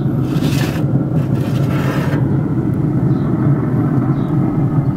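Metal baking tray sliding out across a grill's steel grate: two short scraping sounds in the first two seconds, over a steady low rumble.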